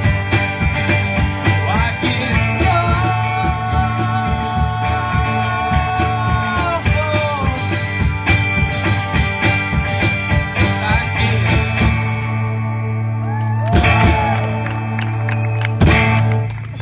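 Live rock band with acoustic and electric guitars and a drum kit playing the end of a song, with a long held, bending note early on and two big accented hits near the end before the sound falls away.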